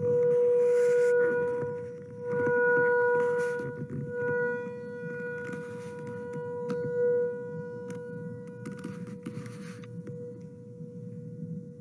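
A sound-bath instrument holding one steady ringing tone that swells and fades several times, loudest in the first half and softer after; faint clicks and brief rustling noises sound over it.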